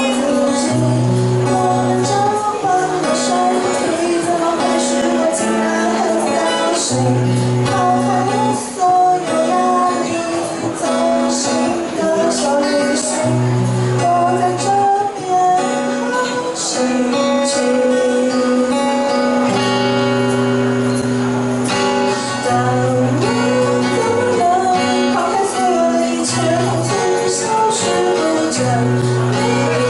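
Live acoustic song: singing over a strummed acoustic guitar, with a shaker keeping time.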